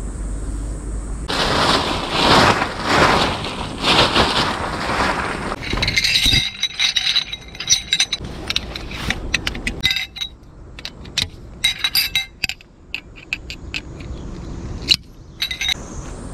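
Camping gear being handled: a few seconds of rustling, then a run of light metallic clinks and scrapes.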